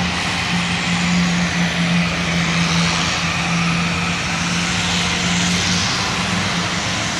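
Honeywell TPE331-12 turboprop engine of a converted Antonov An-2 running at taxi power as the plane taxis: a steady low hum under a wide propeller and turbine hiss. The hum fades about five to six seconds in while the hiss grows brighter as the plane turns.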